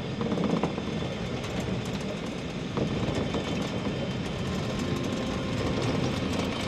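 Steady rolling rumble of a water-balanced funicular car running down its steep rails.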